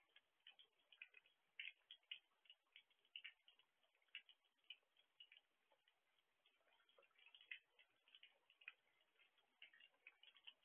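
Faint, irregular ticking of raindrops dripping and tapping on and around an outdoor security camera, several ticks a second.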